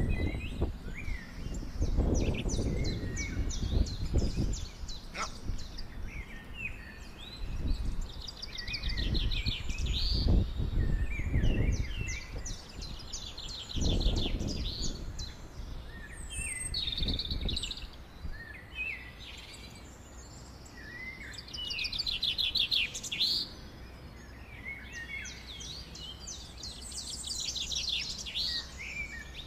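Songbirds singing and calling, many short trills and chirps overlapping. Gusts of wind rumble on the microphone through the first half, then die down.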